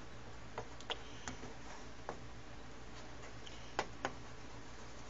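A spatula clicking and scraping against a skillet as soft scrambled eggs are stirred. It makes a few irregular light clicks, with two sharper ones close together about four seconds in, over a steady low hum.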